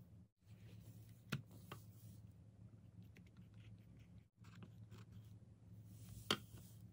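Quiet room tone with a steady low hum, broken by a few light clicks and taps of small objects being handled on a table: a pair of clicks early on and a sharper single click near the end.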